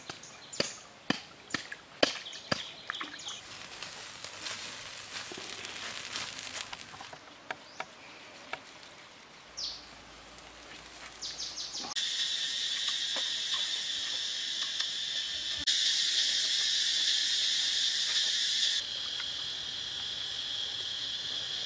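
Insects in a chorus, a steady high-pitched drone that grows loud about halfway through and shifts abruptly a few times between cuts. Sharp clicks and knocks come in the first few seconds.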